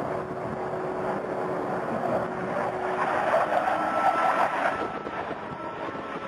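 Jet engine noise from a U.S. Air Force Thunderbirds F-16 fighter flying past, a steady roar that swells about three to four seconds in and then eases.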